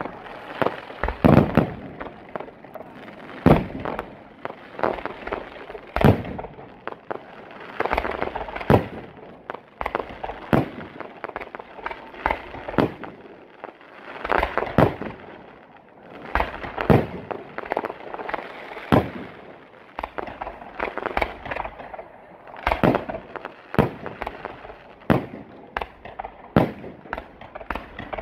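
Aerial fireworks launching and bursting: a steady run of sharp bangs, about one every second or so, over a continuous noisy rush of launches and bursts.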